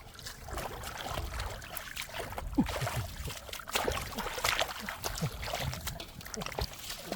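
Shallow water splashing and sloshing irregularly, with a scatter of short sharp splashes and knocks.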